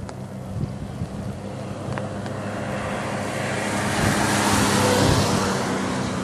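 A steady low engine hum under a rushing noise that swells to its loudest about four to five seconds in, then eases.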